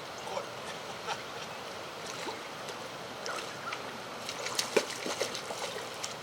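Creek water running and trickling steadily, with scattered small clicks and taps. The sharpest come in a cluster about three-quarters of the way through.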